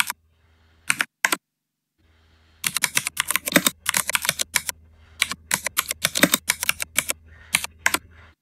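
Typing on a computer keyboard, with quick runs of keystroke clicks. After a few keystrokes there is a pause of about two seconds broken by two single clicks, then fast, nearly continuous typing. A faint low hum runs underneath.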